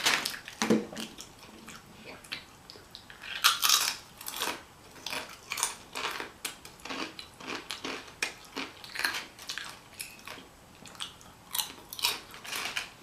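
Close-miked chewing and biting of a burrito bowl, with irregular wet mouth clicks and smacks and a louder bite about three and a half seconds in.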